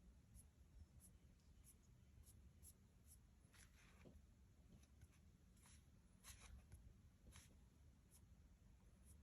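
Near silence with faint fingertip taps and rustles from handling an e-reader, a few small ticks a second and a couple of longer rustles near the middle.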